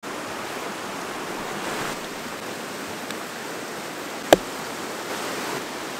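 Steady rushing of a forest creek, with a single sharp knock about four seconds in.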